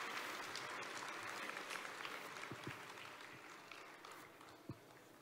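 Audience applause that dies away gradually, with a single sharp knock near the end.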